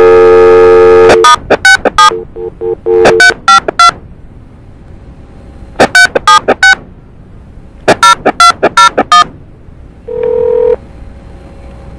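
A landline dial tone, cut off after about a second by touch-tone keypad beeps dialing a phone number in several quick runs of digits. A short ringback tone near the end shows the call going through.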